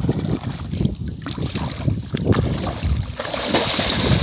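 Legs wading through shallow, muddy paddy water, sloshing step by step. About three seconds in it turns into heavier, louder splashing as the water is churned up.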